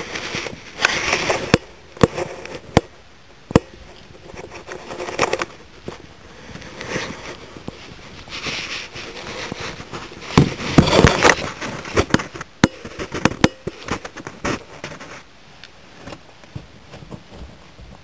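Footsteps crunching through dry grass and brush, with irregular rustling and crackling and a few sharp snaps, loudest in a burst about ten seconds in, then dying away.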